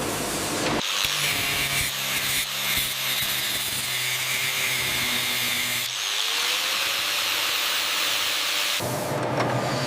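Workshop power tools and machinery running: a steady hissing, rasping noise over a low hum, changing abruptly about a second in, again around six seconds in, and near the end, with a brief rising whine in between.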